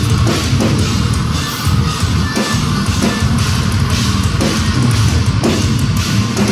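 Metalcore band playing live, loud: heavily distorted electric guitars over a drum kit, with kick and cymbal hits falling about twice a second.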